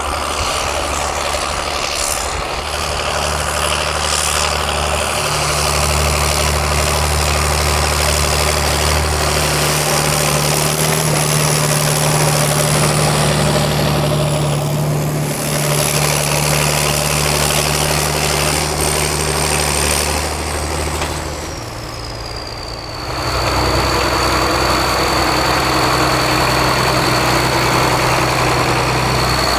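The 1969 John Deere 4520 tractor's retrofitted 7.6-litre 466 turbo diesel, a six-cylinder, runs steadily while ploughing, with a thin high whistle over the engine note. The engine grows louder about five seconds in, dips briefly about two-thirds of the way through, then comes back.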